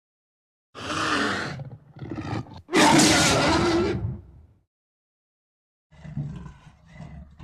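Big-cat roar sound effect voiced as a scimitar cat: a snarling call about a second in, a short growl, then a loud roar lasting about a second and a half. After a pause come faint, low grunts near the end.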